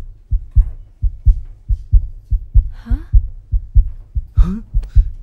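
A deep, regular thumping pulse, about three thumps a second, in the manner of a heartbeat-style bass beat. A couple of short voice sounds cut in over it.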